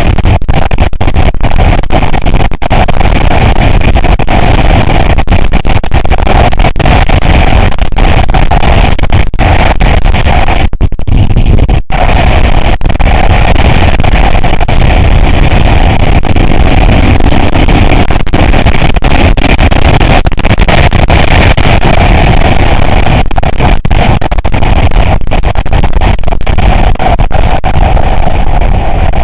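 Off-road vehicle driving, its engine and rough running mixed into a loud, distorted rumble, with many short knocks and crackles throughout. The upper part of the sound drops out briefly around the middle.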